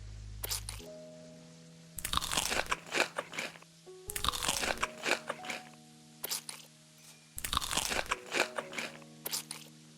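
Crunchy food being bitten and chewed close to the microphone, in three bouts of loud, crisp crunches, with soft background music underneath.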